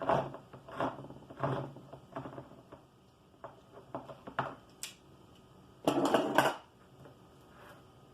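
Kitchen utensils and containers being handled: a run of short scraping knocks about every two-thirds of a second, a few light clicks, then a louder clatter about six seconds in.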